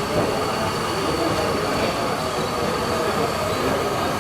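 Radio-controlled model trucks and construction machines running: a steady whine from small electric motors and gearboxes with a thin high tone over a continuous mechanical din.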